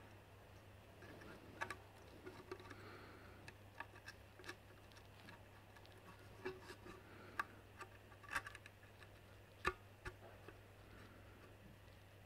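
Faint, scattered light clicks and taps as a Ford EL ECU's metal case and circuit board, with a J3 chip plugged into its port, are handled and turned over; the sharpest click comes near the end. A faint steady low hum runs underneath.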